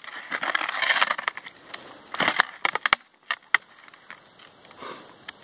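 Snow crunching under skis and boots as the skier shifts and crouches, with a few sharp clicks from handling the metal buckles of the ski bindings.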